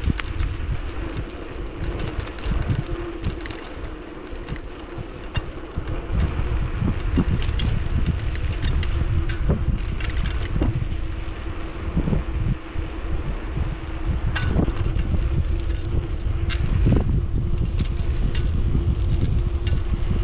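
Bicycle riding noise on a paved street: a steady low rumble of wind on the camera microphone and tyres on the road. A faint steady hum runs underneath, with scattered clicks and knocks from the bike.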